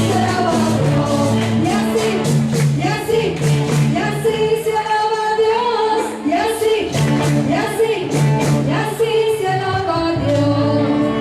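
A group of voices singing a song over instrumental accompaniment, with held bass notes and a steady beat.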